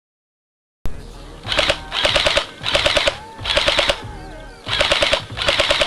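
Airsoft gun firing six short full-auto bursts of about four to five shots each, in quick succession.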